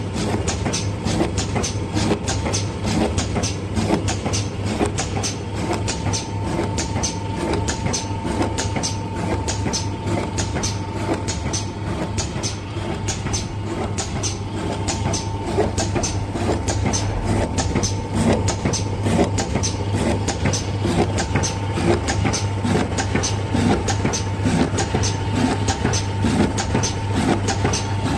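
Single-blade paper tube cutting machine running: a steady motor hum with a constant whine, and a sharp click repeating evenly about two to three times a second as the machine cycles.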